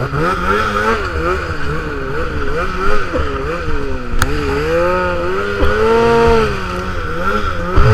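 Snowmobile engine running, its pitch rising and falling again and again as the throttle is worked, with one longer swell about six seconds in. A thump near the end.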